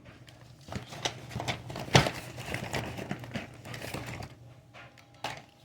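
Die-cast toy cars being handled and set down: a run of small clicks and clatter with rustling, the sharpest click about two seconds in.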